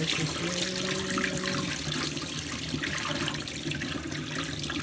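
Water pouring steadily from a plastic jug through a hand net into a stainless kitchen sink, straining baby mullets out of their acclimation water.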